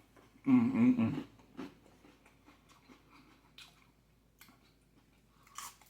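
A man chewing food, with scattered crunches and mouth clicks, and a short hummed "mmm" of enjoyment about half a second in.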